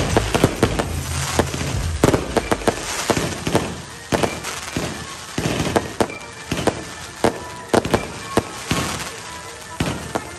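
Fireworks barrage going off in rapid succession: many sharp bangs, several a second, over a continuous crackle of bursting shells.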